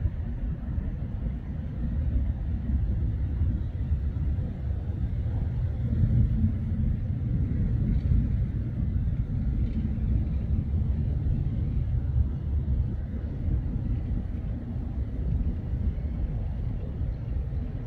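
Turboprop military transport plane taking off and climbing away: a steady low rumble of its engines and propellers.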